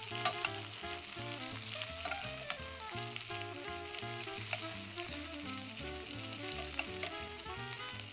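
Halibut fillet sizzling in hot oil and melted butter with small spatters and crackles as it is basted with a spoon. Light background music plays over the sizzle.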